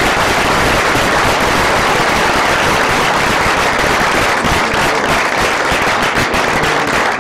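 Audience applauding. The dense clapping thins into separate claps near the end.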